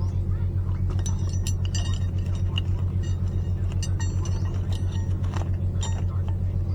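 An engine running steadily at idle, with scattered light metallic clinks and taps of tools or brake parts over it.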